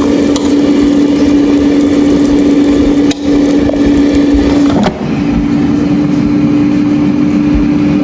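Air fryer fan running with a steady, loud hum, cut off briefly twice near the middle with a sharp click at the first break.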